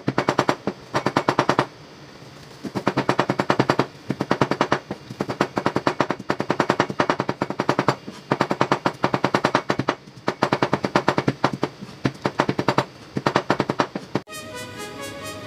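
Chinese cleaver rapidly chopping spring onions on a wooden cutting board: fast runs of knocks lasting a second or two, with short pauses between. Near the end the chopping stops and music starts.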